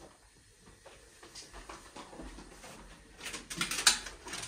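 A paper carrier bag packed with rubbish, rustling and crinkling as it is handled and carried. The crackling is faint at first and gets denser about three seconds in, with a sharper click near the end.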